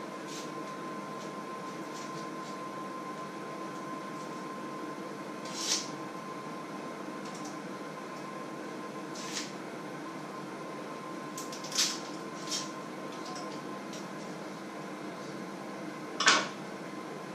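Potatoes being peeled and handled by hand: a few short, sharp knocks and scrapes of a utensil against a bowl and a wooden chopping board, the loudest near the end. Under them runs a steady electrical hum with a faint high whine.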